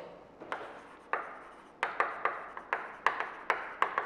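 Writing by hand: a run of about nine short taps and scratches of the writing tool, at an uneven pace.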